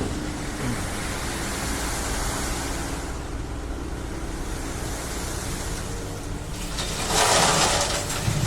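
Hydraulic excavator's diesel engine running steadily during stone unloading, with a louder rushing noise lasting about a second near the end.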